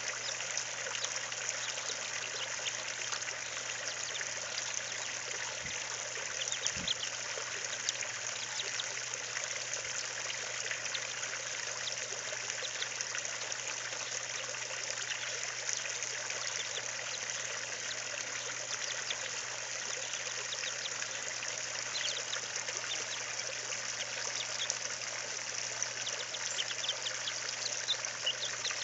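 A steady rushing hiss with an even level throughout, with faint, short, high chick peeps scattered through it now and then.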